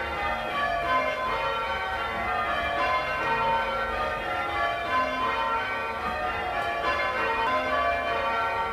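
A ring of eight church tower bells hung for full-circle change ringing, rung in call changes: the bells strike one after another in quick succession, each note ringing on and overlapping the next.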